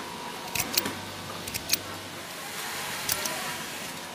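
Garment factory machinery: a steady hum with sharp metallic clicks in close pairs every second or so.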